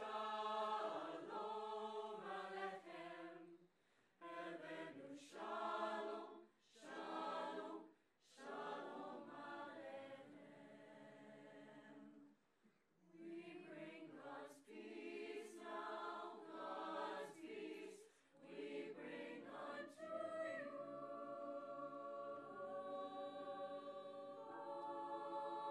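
High school madrigal choir of mixed voices singing a cappella in short phrases separated by brief breaths, then holding a long chord near the end.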